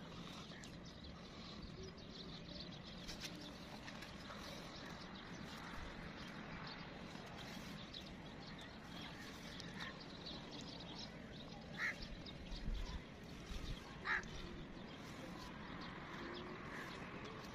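Faint outdoor background noise with a few short bird calls, the clearest about twelve and fourteen seconds in.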